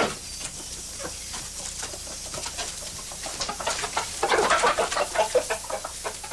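Chickens clucking in a wooden pen, short separate calls that turn louder and come in a quick run from about four seconds in.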